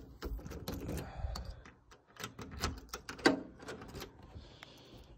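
Irregular light clicks and knocks, several a second and uneven in strength: footsteps and shifting on solid, screwed-down wooden deck boards.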